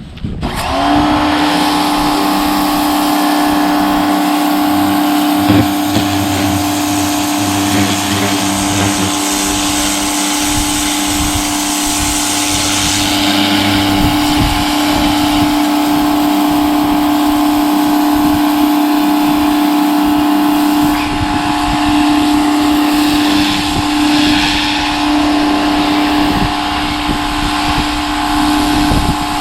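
Greenworks electric pressure washer kicking on about half a second in and then running steadily: a constant motor-and-pump hum over the hiss of water blasting from a turbo nozzle.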